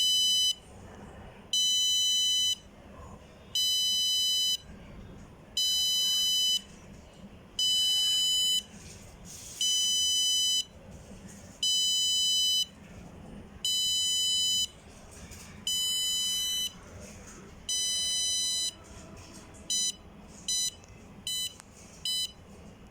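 Electronic buzzer of a homemade maker-board oven timer beeping as it counts down. About ten high, one-second beeps come two seconds apart, then five short, quicker beeps near the end signal that the countdown is finished.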